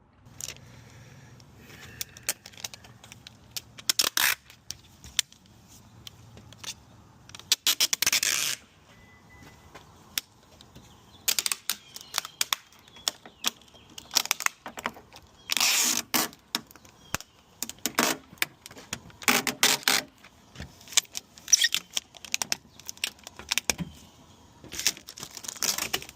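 Hand tools and door parts being handled inside a car door: scattered clicks, clinks and scrapes, with several short rasping bursts.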